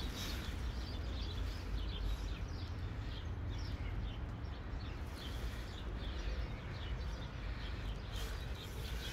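Small birds chirping in quick, short notes over a steady low rumble of outdoor background noise.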